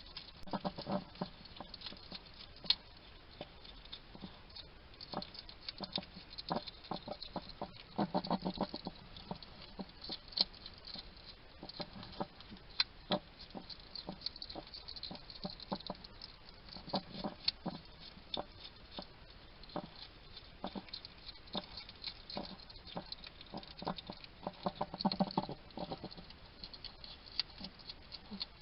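A wild hedgehog eating: quick, continuous crunching and clicking of chewing, broken four times by short, low-pitched snuffling grunts as it chatters to itself.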